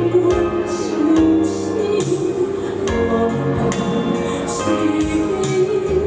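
Music: a pop-ballad backing track playing, with a singing voice carried over it.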